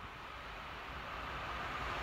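VR Class Sr1 electric locomotive hauling a passenger train approaching on the rails, its running noise growing steadily louder.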